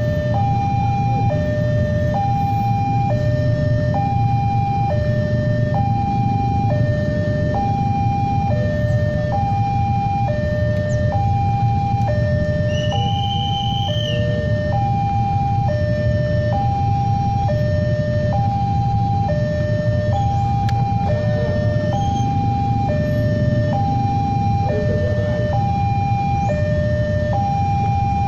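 Railway level-crossing warning alarm sounding an even electronic two-tone hi-lo pattern, each tone about a second long and repeating without a break, over a steady low rumble. It is the warning that a train is approaching the crossing.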